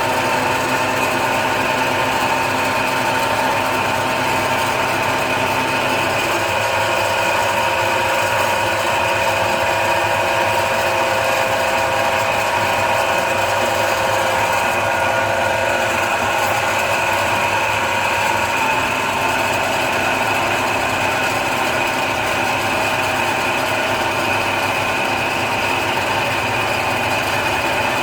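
A noodle-making machine running steadily with a constant mechanical hum and whir; its tone shifts slightly about six seconds in and again a little before twenty seconds.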